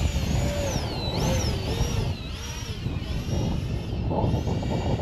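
Electric ducted-fan RC jet whining overhead during a slow high-alpha pass, its pitch swinging up and down for the first few seconds as the throttle is worked, then steadier. Heavy wind buffets the microphone throughout.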